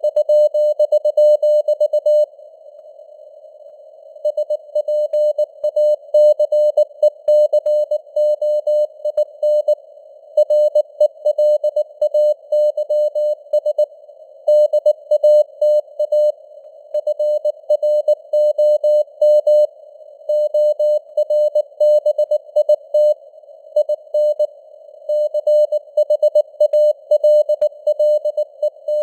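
Morse code news sent at 19 words per minute: a single mid-pitched beep keyed into dots and dashes over a narrow band of simulated radio hiss, with the signal strength varying. The keying pauses for about two seconds shortly after the start, then runs on.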